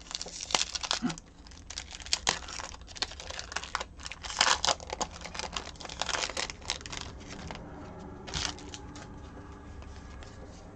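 Topps trading card pack wrapper being torn open and crinkled in the hands: a dense run of crackling tears and rustles for about seven seconds, then one last short crinkle a little after eight seconds in.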